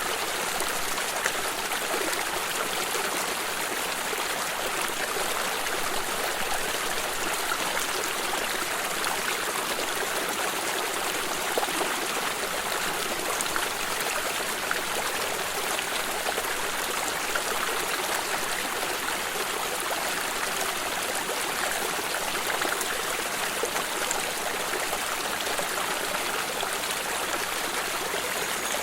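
Water in a stream running and trickling steadily, a continuous even rush of water.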